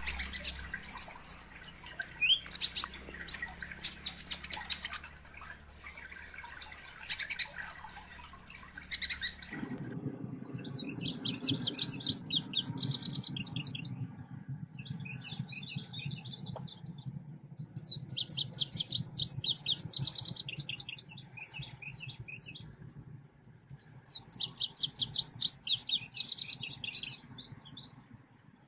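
Recorded selendang biru birdsong played as a lure track. For about the first ten seconds there is dense, high chirping with two thin, high whistles. After that, a different recording follows: bursts of fast, trilled song every few seconds over a low background rumble.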